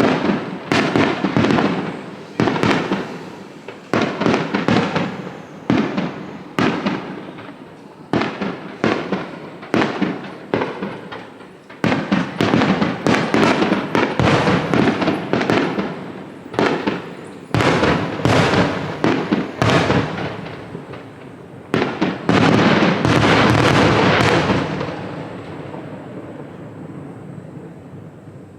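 Fireworks display: aerial shells bursting in rapid succession, many explosions a second at times, with crackling and echoing bangs, building to a dense finale-like barrage about three quarters of the way through before dying away into fading rumble.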